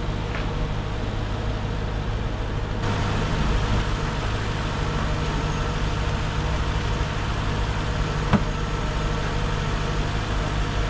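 Mercedes SLK 55 AMG's M113 V8 engine idling steadily, sounding sweet with its new drive pulley and serpentine belt fitted. A single sharp click about eight seconds in.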